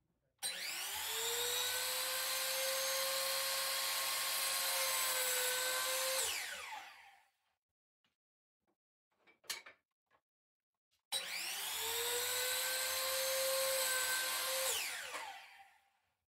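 A Bosch miter saw run twice to crosscut wooden chair supports. Each run starts suddenly, holds a steady whine through the cut, then winds down with a falling whine once the trigger is released. The first run begins about half a second in, the second about eleven seconds in, with a few light knocks in the pause between.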